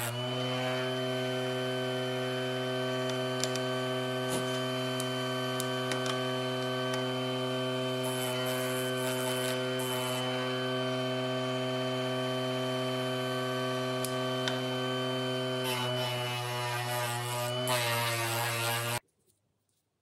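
Benchtop disc sander running with a steady motor hum and the hiss of a wooden pen blank held against the spinning sanding disc. The sound cuts off suddenly near the end.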